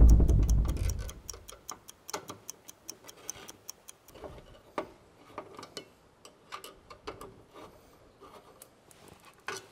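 A deep boom at the start, then a clock ticking steadily: a 'time passing' transition sound effect.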